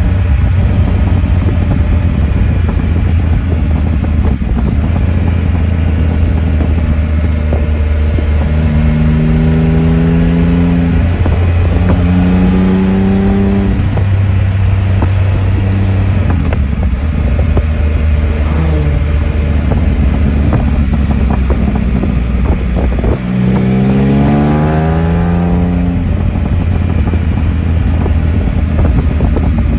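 Can-Am Spyder F3's Rotax three-cylinder engine running at road speed under a steady rush of wind on the microphone. The revs climb in several pulls as it accelerates, the longest about 24 s in.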